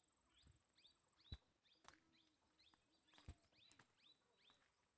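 Faint birds chirping in quick short downward calls, about three a second, with a few sharp clicks in between.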